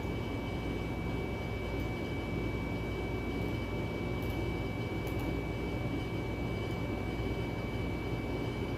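Steady low mechanical hum and hiss with a constant high-pitched whine, unchanging throughout, with a few faint ticks.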